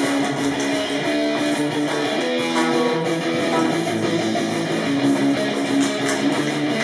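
Guitar strummed in sustained chords, the notes ringing on between strokes.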